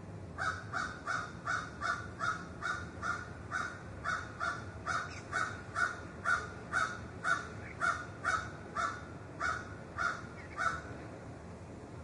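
A crow cawing in a fast, even series, about twenty short caws at roughly two a second, stopping about a second before the end.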